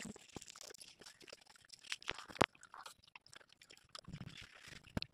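Quiet eating sounds as rice is eaten by hand: scattered wet mouth clicks and smacks of chewing, the sharpest about two and a half seconds in.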